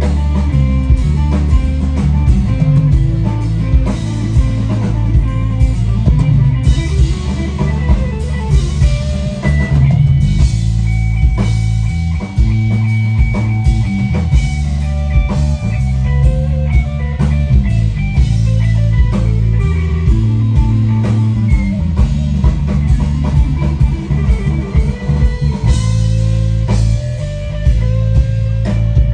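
Live funk-rock band playing an instrumental passage: electric guitar over a heavy bass line and a steady drum-kit beat.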